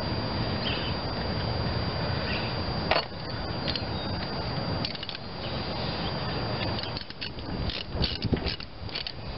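Hands working spark plug wires and rubber plug boots on a small engine's cylinder head: a sharp click about three seconds in, then a run of irregular clicks and rubbing near the end, over a steady background hiss.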